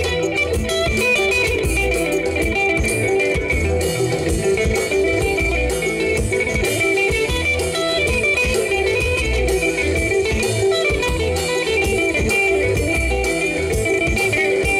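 Live band music led by electric guitar, over bass and a steady drum beat.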